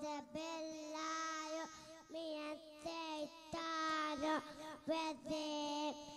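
A young boy reciting into a microphone in a sing-song chant: short phrases of held, steady notes, each broken off by a brief pause for breath.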